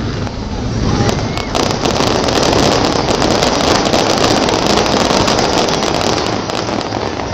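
Fireworks: a dense, continuous crackling and fizzing from a burst of crackling stars. It swells about a second in and stays loud.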